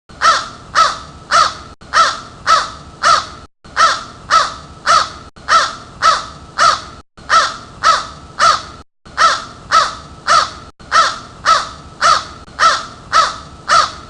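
Crow cawing: loud, harsh caws in steady groups of three, the groups repeating at an even pace.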